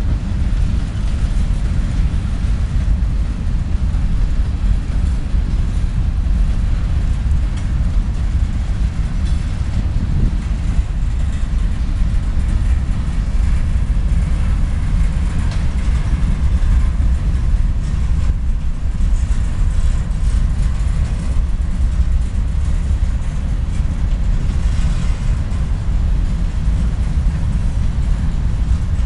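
Freight cars of a mixed freight train, tank cars and covered hoppers, rolling past: a steady, loud rumble of steel wheels on rail.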